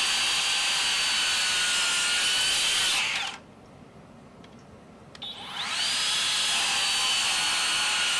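SKILSAW TRUEHVL cordless worm drive circular saw cutting a treated 4x6 at a 45-degree angle, with a steady high whine. About three seconds in it is released and winds down quickly. After a pause of about two seconds it spins back up and runs steadily into the next cut.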